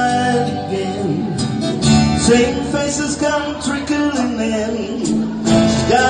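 Country band music with strummed acoustic guitar and sustained instruments.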